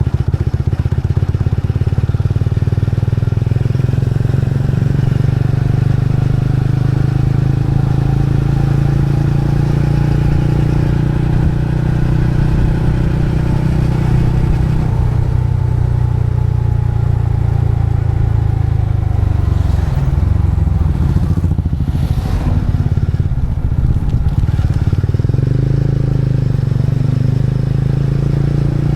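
A motorcycle engine running steadily while being ridden. About two-thirds of the way through, its note drops and wavers, then it settles again.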